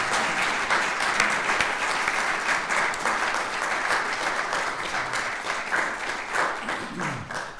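Audience applauding: dense, many-handed clapping that tails off near the end.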